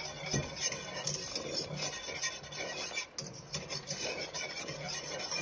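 Wire whisk scraping and rattling against a stainless steel pan in quick, continuous strokes while it whisks a cornstarch-thickened lemon sauce. The strokes pause briefly about three seconds in.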